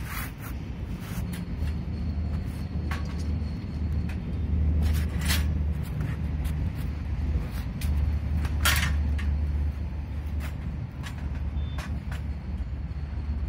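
Short metallic clanks and scrapes as a steel tube handle is worked into the sockets of a steel hand cart frame, the loudest about 5 and 9 seconds in, over a steady low rumble.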